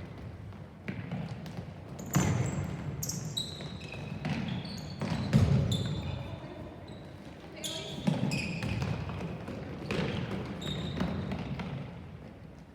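A soccer ball being kicked and bouncing during play, with several loud thuds about 2, 5 and 8 seconds in, amid short high squeaks.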